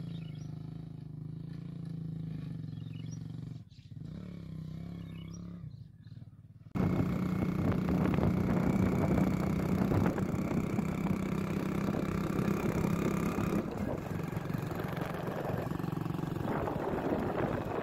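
Kick-started motorcycle engine running steadily. About seven seconds in it turns abruptly louder, with heavy rushing noise over the engine.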